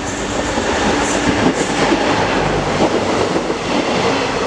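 Passenger electric multiple unit approaching along the platform track and passing close by at speed, growing louder, its wheels clattering over the rails.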